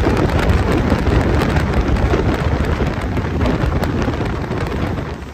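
Wind rushing over the microphone out of the open window of a moving passenger train, over the low rumble of the train running on the track; it eases slightly near the end.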